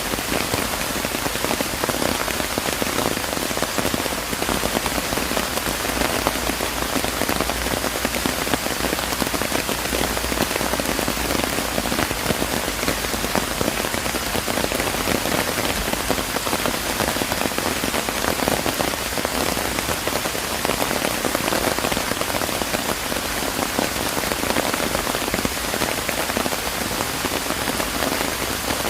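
Steady rain falling and pattering on surfaces, a dense even hiss of many small drop impacts.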